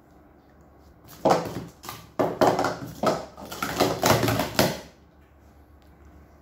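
Plastic sport-stacking cups clattering in a fast run of clacks as they are upstacked into pyramids and downstacked again in a 3-6-3 stack, starting about a second in and stopping after about four seconds.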